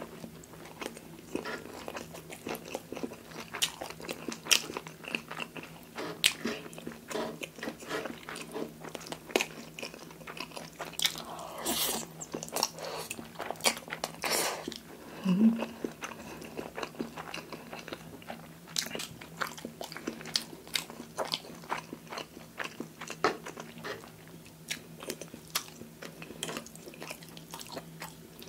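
Close-miked eating sounds of creamy fettuccine: wet chewing and mouth clicks, with a longer slurp of noodles about halfway through, and the fork working the pasta on the wooden plate.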